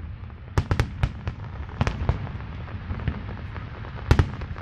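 Aerial fireworks going off in a series of sharp bangs over a constant low rumble, the loudest cluster of bangs near the end.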